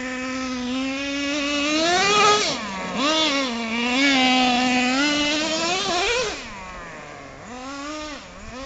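Traxxas T-Maxx RC monster truck's small nitro two-stroke engine revving up and down as it is driven, its pitch rising and falling again and again. The engine eases off and drops lower about six seconds in, then picks up again near the end.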